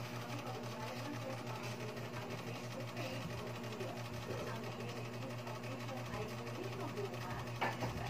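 A steady low hum runs under light handling noise as an iPhone 6s replacement display assembly is picked up and turned over in the hands. A sharp click comes near the end.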